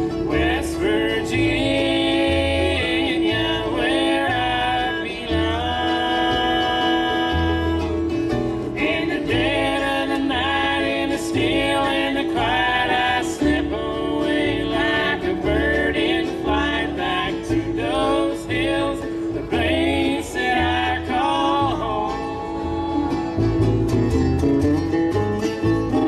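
Live bluegrass band: a woman singing lead with men's close harmony over fiddle, mandolin and upright bass. The singing stops about 22 seconds in and the band goes into an instrumental break with mandolin and acoustic guitar.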